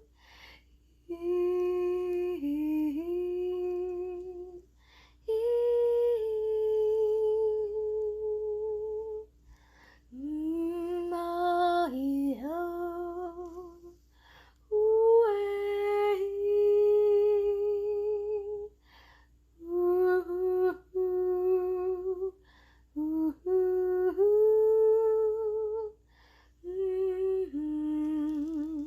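Wordless channeled singing by a single voice: long held notes with a wavering pitch and occasional upward slides, sung in phrases of a few seconds with short pauses between them.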